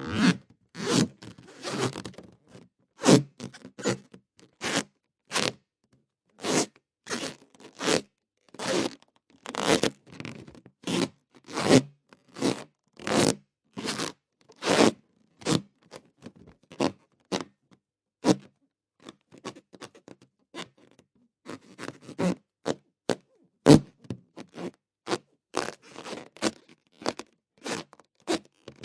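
Inflated rubber balloon squeaking as it is rubbed: a long run of short, separate squeaks, about one to two a second, with a few brief pauses.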